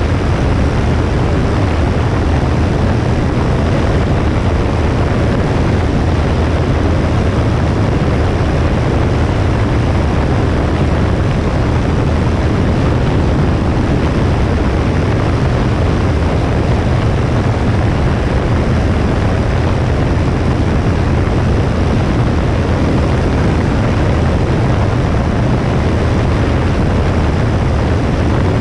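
Cessna 172S's four-cylinder Lycoming engine and propeller running steadily, a constant low drone mixed with heavy wind rush over a wing-mounted camera.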